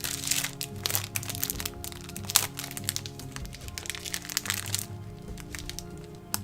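Crinkling and crackling of a small plastic parts bag being handled and torn open, dense for about five seconds and then only a few scattered clicks, over background music.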